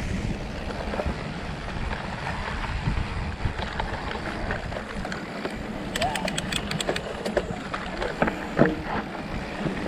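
Mountain bike riding over a dusty, rocky trail: a steady rumble of tyres on dirt and rock mixed with wind on the microphone and rattling of the bike, with a quick run of sharp clicks about six to seven seconds in.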